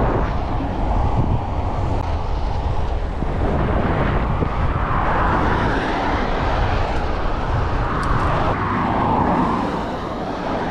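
Wind buffeting the microphone of a camera on a moving bicycle, a steady low noise, mixed with the rush of cars and vans passing in the highway lanes alongside, swelling as vehicles go by about halfway through and again near the end.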